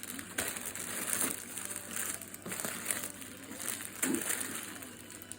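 Plastic snack packets crinkling and rustling as they are handled, a continuous crackle that eases off a little near the end.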